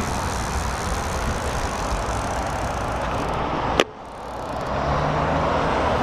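Steady wind and road noise from a road bike rolling on wet pavement, with passing car traffic. A single sharp click comes just under four seconds in, after which the noise drops suddenly and then slowly builds again.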